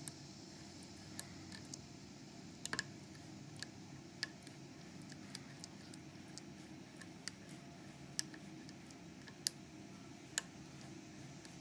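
Light, irregular metal clicks of a hook pick working the pin stack of a Master Lock ProSeries 7040 padlock under tension from a tension wrench, about a dozen ticks spread unevenly, a few louder than the rest. A steady low hiss runs beneath.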